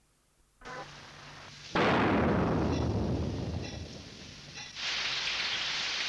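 Thunder and rain: a hiss sets in, a loud clap of thunder about two seconds in rumbles away over a couple of seconds, then a steady rain hiss.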